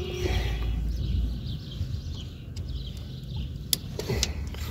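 Steady low background rumble, with a few light metallic clicks near the end as drum-brake shoe hardware (pins and springs) is handled with pliers.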